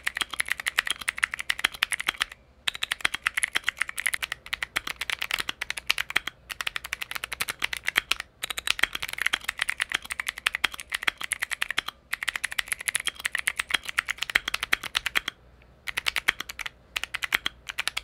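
Mechanical keyboard with Otemu dustproof blue click-jacket switches being typed on fast: rattly, high-pitched clicking in quick runs, broken by short pauses every couple of seconds.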